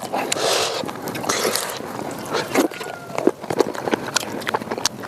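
Close-miked eating sounds: chewing of chicken with rice and salad, with many quick wet mouth clicks and smacks.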